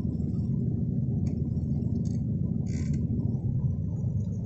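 Sailboat's inboard engine running steadily, a low rumble heard from on board, with a few brief clicks over it.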